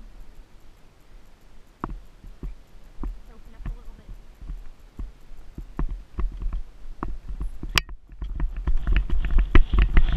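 Icelandic horse's hoofbeats on a sandy dirt trail, with a low rumble of wind on the microphone. A sharp click and a brief dropout come just before eight seconds in, after which the footfalls come quicker and louder.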